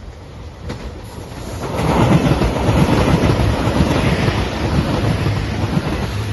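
JR Shikoku 2700 series diesel limited express train passing close by at speed. A rumble of wheels on rails and engine noise swells and is loud from about two seconds in as the cars go past.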